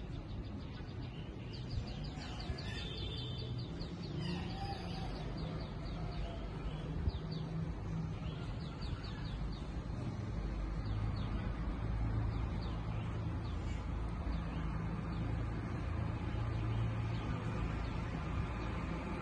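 Small birds chirping in quick runs of short, high chirps through roughly the first half, over a steady low rumble that grows a little louder about halfway through.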